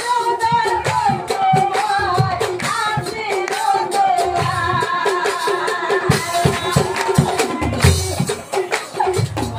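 A woman singing a nagara naam devotional song in a strong, sustained voice, over a steady beat of nagara drums and cymbals.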